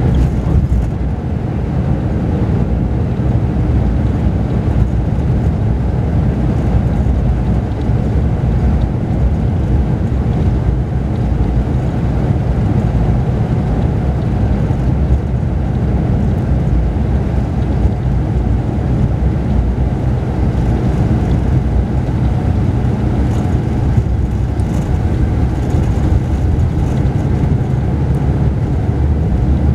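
Mercedes-Benz O-500RSD coach's diesel engine and running gear heard from the upper deck of a Marcopolo Paradiso 1800 DD double-decker under way: a steady low drone mixed with road noise.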